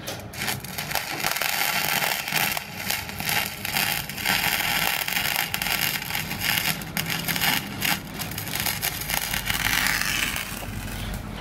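Three-phase transformer MIG welder arc welding: a steady, dense crackle and sizzle from the arc, with a low steady hum beneath. The arc stops near the end.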